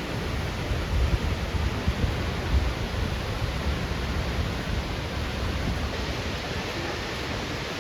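Steady rushing roar of a waterfall, with wind buffeting the microphone in gusts about a second in.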